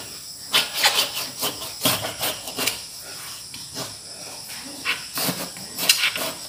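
Kitchen knife cutting through the tough rind and flesh of a wax gourd, a series of irregular scraping strokes as the blade is worked around the fruit.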